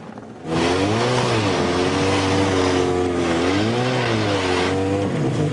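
Snowmobile engine revving, starting abruptly about half a second in, its pitch rising and falling twice.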